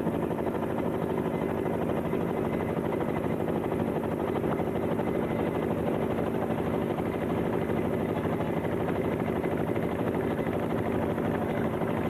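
An engine running steadily at constant speed, with an even drone and a fast regular pulse.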